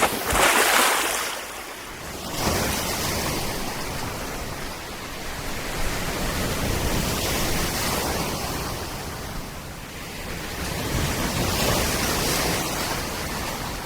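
Steady rushing of strong wind and surf on an open beach, rising and falling in swells, with the wind buffeting the microphone.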